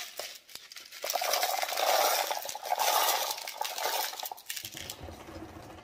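Ceramic tumbling media poured into a tumbler barrel of agates: a dense clattering stream of small ceramic pieces clinking that starts about a second in and thins out toward the end, with a few low bumps near the end.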